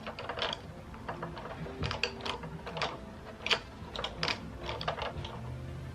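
Plastic and metal parts of a ring light kit clicking and ratcheting as they are fitted and tightened together by hand, an irregular run of sharp clicks.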